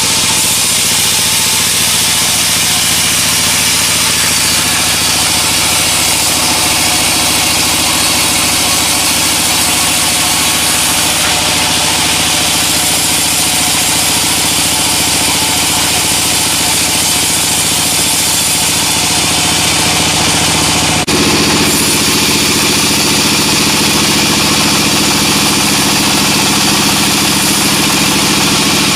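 Sawmill machinery running steadily with a constant engine-like drone. The sound changes abruptly about two-thirds of the way through, becoming slightly louder.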